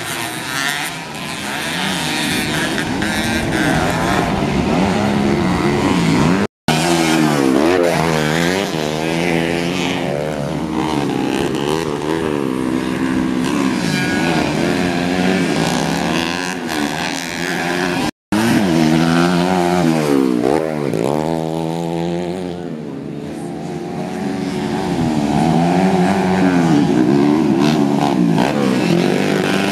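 Engines of several small-capacity motocross bikes (2-stroke 116 cc and 4-stroke 125 cc race class) racing round a dirt track, their pitch rising and falling again and again as riders open the throttle and shift through the gears. The sound cuts out briefly twice.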